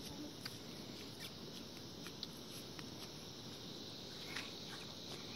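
Faint, scattered light crackles and rustles of footsteps in dry harvested straw stubble.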